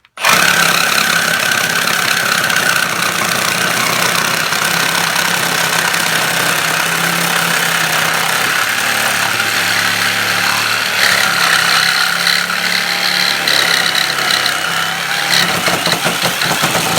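Power tool cutting through a galvanized steel drain pipe, starting abruptly and running steadily and loudly with a constant high whine over a harsh hiss.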